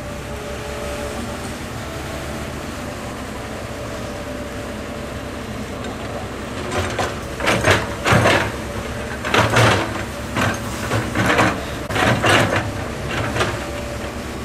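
Diesel engine of a Komatsu crawler excavator running steadily while digging. From about halfway through, a run of loud, irregular noises comes and goes roughly once a second.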